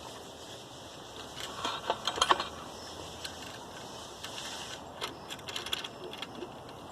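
Small metal parts clicking and clinking as a garbage disposal's wiring-harness strain relief and its clamp are handled and fitted. The clicks come in two bursts, the first louder.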